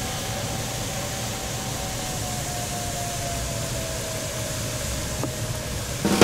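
Steady airflow rushing over a glider's canopy in flight, with a faint single tone slowly falling in pitch behind it.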